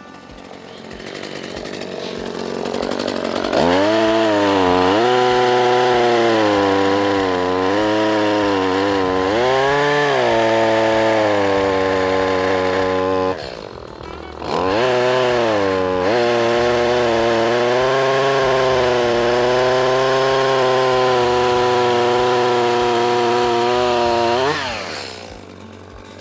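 Chainsaw cutting through a cedar log, its pitch sagging and recovering as the chain loads in the wood. It stops briefly about halfway, cuts again, and winds down near the end.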